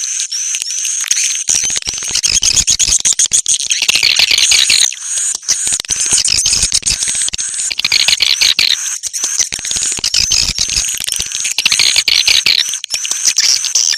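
Bird-lure recording of birds calling: a dense, loud chatter of chirps and rapid clicking notes, with a short high call repeated several times a second over it.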